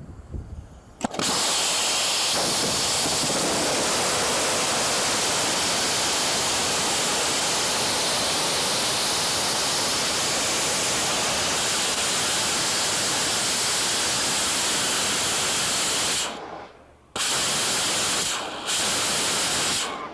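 A surplus Condor missile rocket motor burning high-pressure gaseous oxygen and ethanol lights suddenly about a second in, then fires with a loud, steady rushing noise. The noise breaks off twice briefly near the end.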